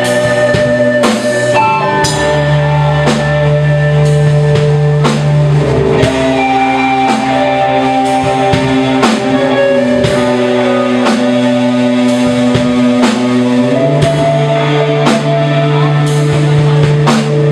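Rock band playing an instrumental passage: electric guitar chords held over bass, with a drum kit keeping a steady beat.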